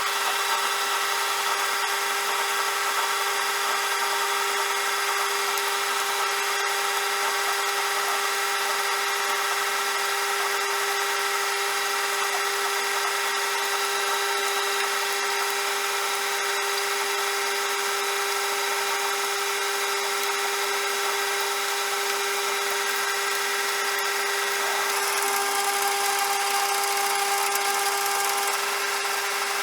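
CJM360 metal lathe running with a steady machine whine over a hiss. About 25 seconds in it turns brighter and slightly louder for a few seconds, then settles back.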